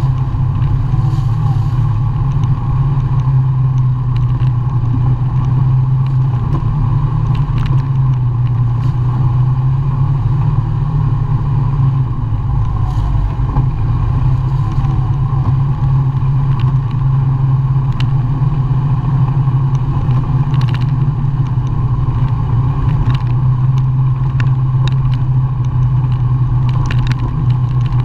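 ATV engine running at a steady pace while riding over a rough dirt trail, with scattered clicks and knocks from the machine bouncing over the bumps.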